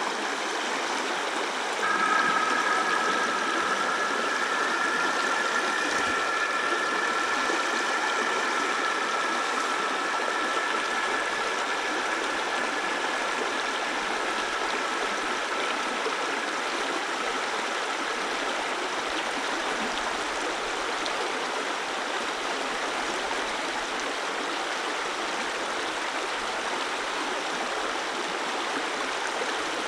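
Steady rush of a mountain stream's flowing water. From about two seconds in, a faint steady two-note tone sounds over it and fades away about halfway through.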